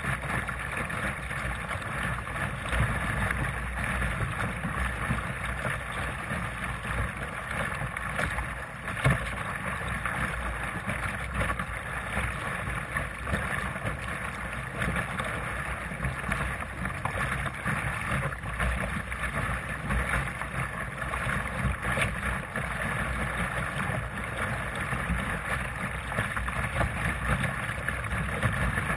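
Water splashing and rushing along the hull of a Sunfish sailing dinghy under sail, with wind buffeting the microphone. There is a single louder knock about nine seconds in.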